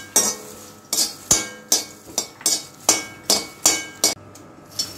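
Slotted steel ladle scraping and clinking against a stainless steel kadhai, about two or three strokes a second, as chopped makhana are stirred while roasting in ghee. The strokes stop about four seconds in.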